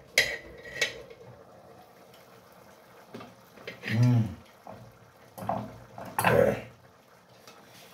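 Metal cookware clinking on a pan on a gas cooker: a sharp clink with a brief high ring, then a second click. Later come a man's short hum whose pitch rises and falls, and more clatter of a spoon working in the pan.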